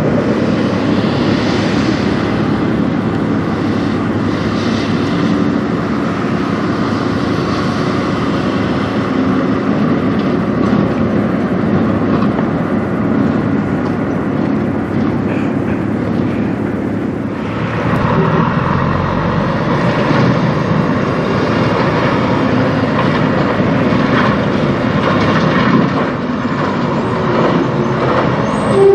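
Tractor-trailers driving past on a highway: steady engine and tyre rumble. The sound changes about two-thirds of the way through as another truck passes, and there is a brief louder blip near the end.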